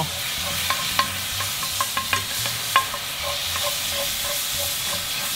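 Ground beef sizzling as it browns in a hot cast iron skillet, stirred with a wooden spoon: a steady frying hiss with scattered clicks and scrapes of the spoon against the pan, one sharper knock about three seconds in.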